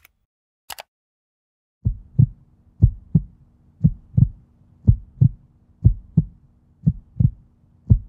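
A heartbeat sound effect: paired low thumps like a lub-dub, about one pair a second over a steady low hum, starting about two seconds in. A single short click comes just under a second in.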